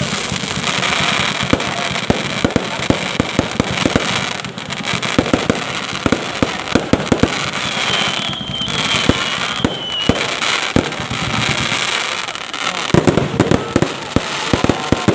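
Fireworks display: rapid, dense bangs and crackling from bursting shells, with a faint high whistle a little past the middle.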